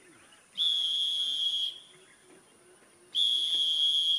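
Two long, steady, high whistles of about a second each, the second following about two and a half seconds after the first.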